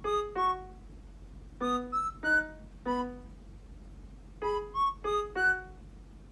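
Background music: a slow, sparse keyboard melody of single notes that fade away, played in short phrases of two to four notes with pauses between them.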